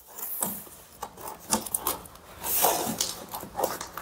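Cardboard packaging box being handled and opened: irregular scraping and rubbing of cardboard, with a longer, louder scrape about two and a half seconds in.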